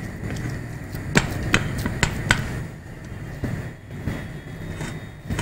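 Plastic spatula patting and pressing a potato-semolina mixture flat in a metal pan lid: a run of sharp taps, four close together in the first half, then a few more spaced out.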